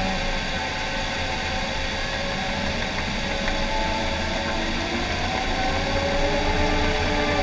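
John Deere 750K crawler dozer's diesel engine running steadily under load as it pushes dirt, heard from inside the cab, with a whine whose pitch drifts and rises slightly near the end.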